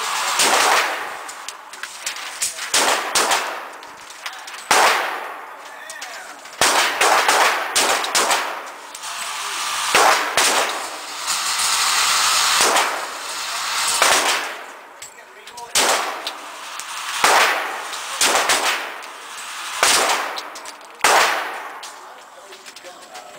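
9mm Glock 17 pistol firing single shots at an irregular pace, mostly about a second apart, each crack followed by a long echoing tail.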